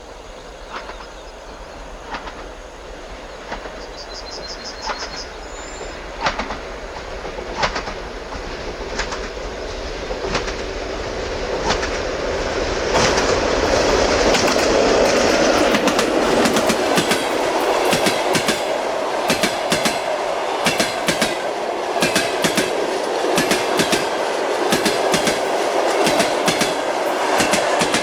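Passenger train wheels clacking over the rail joints over a steady rumble. The knocks come about one every second and a half at first, then about halfway through they quicken and the whole sound grows louder.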